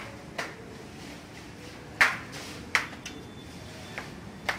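Sharp metallic clinks and knocks of hand tools on the front axle of an Eicher 364 tractor, five separate strikes, the loudest about two seconds in, some with a short ring.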